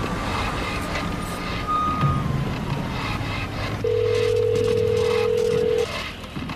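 A single steady telephone line tone, about two seconds long, starting about four seconds in, heard over a low steady drone; earlier a thin tone glides up, holds and falls away.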